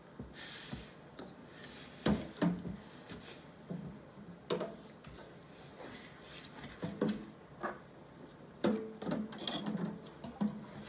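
Spatula stirring a dry flour, sugar and spice mixture in a plastic mixing bowl: irregular knocks and scrapes against the bowl, a few seconds apart.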